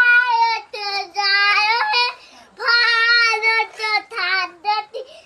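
A high voice singing a melody in held notes, with a short break about two seconds in.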